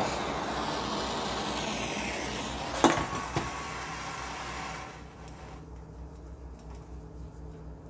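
Hand-held gas torch flame hissing steadily, then going out about five seconds in. A couple of light metallic clinks a little before the flame goes out.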